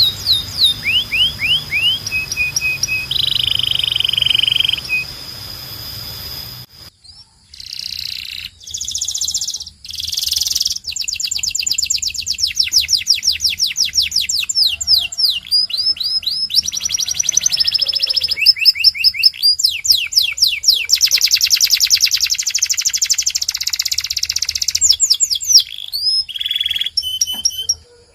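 Domestic canary singing: fast trills and rolls of rapidly repeated high notes, rising and falling sweeps and short held notes, in phrases broken by brief pauses, with a longer lull about seven seconds in.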